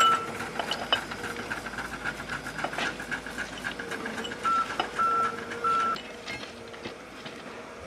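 A vehicle reversing alarm beeping steadily at one pitch, about two beeps a second, stopping about six seconds in. A few sharp metal clinks from tools and bolts on the rail joint.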